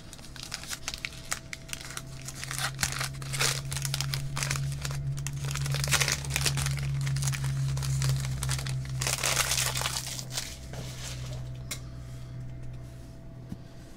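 Red foil wrapper of a 2017 Panini Origins football card pack crinkling and tearing as it is ripped open by hand. It makes a dense run of crackles, heaviest through the middle, over a steady low hum.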